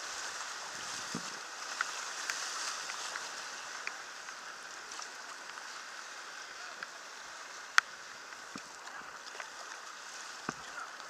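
Rushing water of a whitewater river, a steady hiss that eases slightly as the raft moves toward calmer water. Occasional sharp clicks and knocks, the loudest about eight seconds in.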